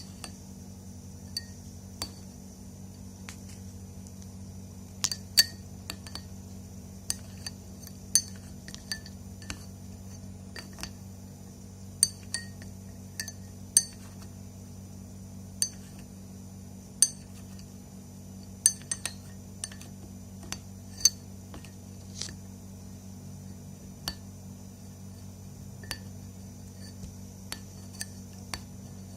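A spoon clinking irregularly against a glass, roughly once a second, each strike ringing at the same few high notes, over a steady low hum.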